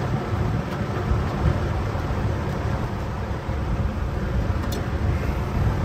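A steady low rumble, with a faint light click about five seconds in.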